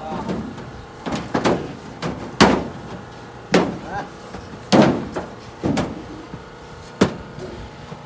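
Cattle hooves stamping and clattering on a truck's wooden deck and ramp, knocking against its metal side gates: about a dozen sharp bangs at irregular intervals.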